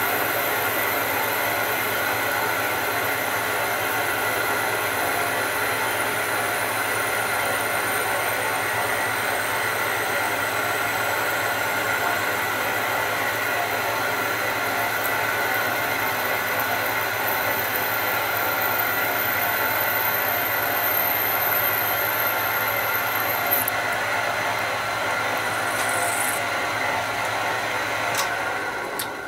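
Metal lathe running while a carbide-insert parting-off tool cuts through a spinning metal bar: a steady machine drone with thin high ringing tones from the cut, one sliding slowly down early on and another stopping suddenly later. The cut goes smoothly without chatter, and the lathe winds down near the end.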